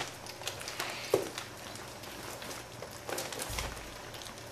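Puppies lapping and smacking at wet puppy mush in their bowls, a soft continuous patter of wet licks and small clicks. One short squeak sounds about a second in.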